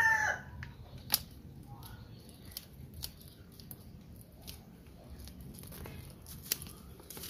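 Yellow-handled scissors snipping through the fine fibrous roots of a bare bonsai root ball: scattered, sharp single snips a second or more apart, the loudest about a second in and near the end. A rooster's crow trails off at the very start.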